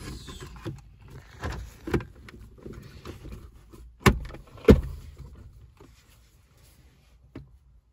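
Plastic centre-console trim being handled and pressed back into place around the shifter, with rattling and two sharp clicks a little after halfway.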